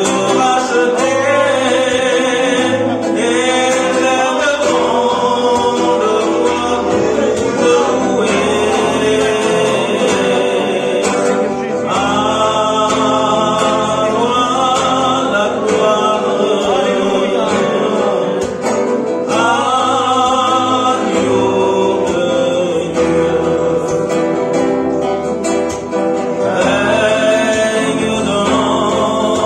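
A man singing a hymn solo into a microphone, in long phrases with short breaks between them, accompanied by strummed acoustic guitar.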